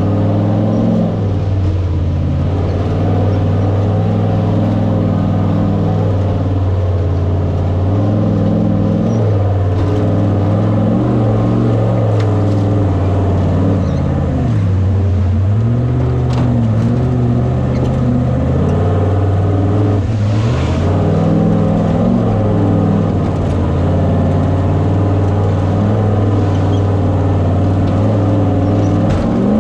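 Off-road race vehicle's engine running hard, its revs rising and falling again and again, with a few short knocks mixed in.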